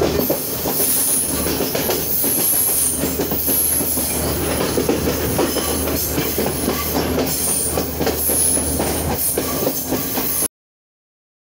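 Train running, heard from on board: a continuous clatter of wheels over the rails under a steady low hum, with an intermittent high squeal. The sound stops abruptly about ten seconds in.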